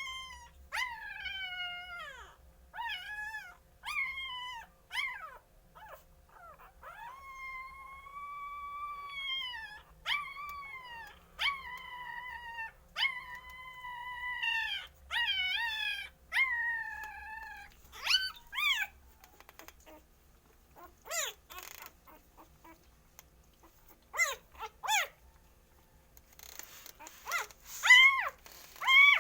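Young puppies whining and crying in a long series of high-pitched, falling whimpers, about one a second, a few held for a second or two; the cries thin out and grow sparser past the middle, then come loud again near the end. Typical of hungry puppies crying for food.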